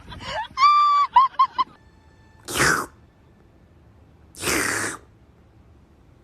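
Goose honking: a run of quick short honks with one longer, steady honk about a second in. Then come two short breathy hisses, the first about two and a half seconds in and the second, slightly longer, about four and a half seconds in.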